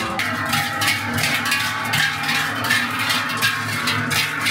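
Background music with a steady percussion beat, about two strokes a second.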